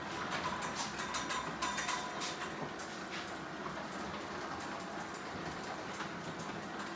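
Garage door opener running on its backup battery, slowly drawing a garage door closed with a steady mechanical run and many small clicks and rattles. The slow travel comes from running on battery during a power cut.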